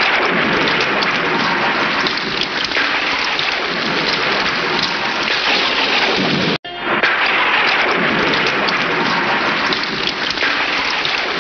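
Steady rain falling on floodwater: a dense hiss of countless small drop splashes on the water surface, cut off for a split second about six and a half seconds in.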